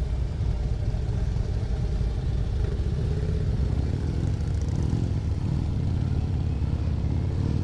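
Harley-Davidson motorcycle's V-twin engine running steadily at riding speed, with wind and road noise, picked up by a helmet-mounted camera.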